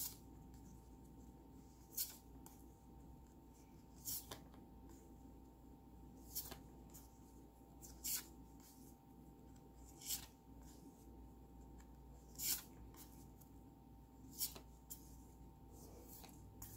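Oracle cards being looked through one at a time: a short papery swish as each card slides off the deck, about every two seconds, over a faint steady hum.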